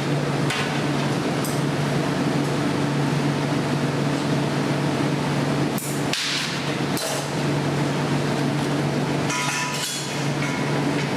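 Metal glassblowing hand tools clinking and knocking against the glass and the steel bench, a few sharp strikes spread through, with a cluster near the end, over a steady low hum.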